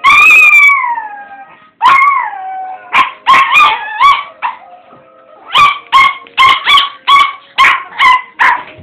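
Chihuahua howling along to TV music: a long howl falling in pitch at the start and a second shorter one, then a string of sharp barks, about two a second over the last few seconds.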